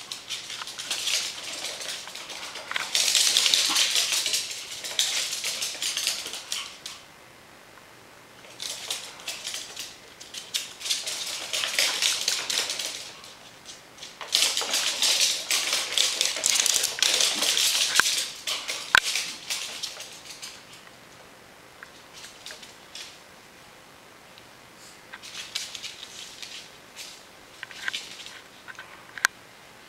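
Claws of a Pomeranian and a ferret skittering and clicking rapidly on a hardwood floor as the two run about. The sound comes in bursts of a few seconds with quieter gaps between, and fades to a fainter patter near the end.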